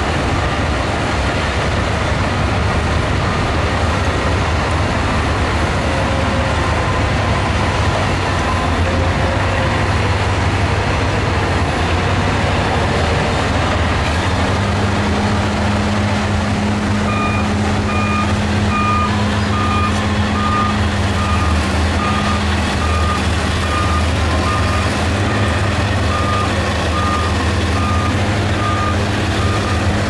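SHANTUI DH17C2 bulldozer's diesel engine running steadily under load as it pushes sand and rock, with a higher engine note joining about halfway through. From a little past halfway, a reversing alarm beeps repeatedly, about one and a half beeps a second.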